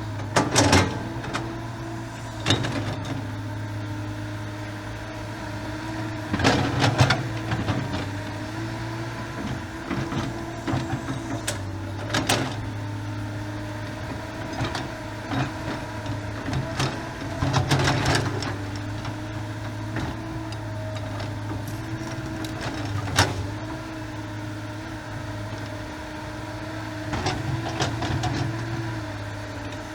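A diesel engine running steadily, its pitch shifting slightly as the load changes. Sharp metallic knocks and clanks come every few seconds.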